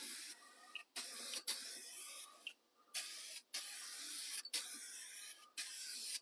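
Aerosol spray can of Eastwood Chassis Black satin paint hissing out in a string of short bursts, each about half a second to a second long, with brief pauses between them.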